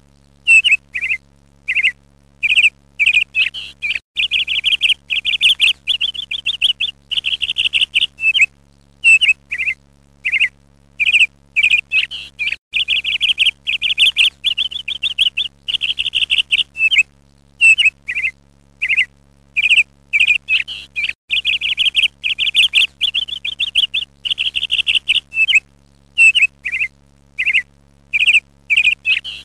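Ducklings peeping: runs of rapid, high-pitched peeps, broken by short pauses.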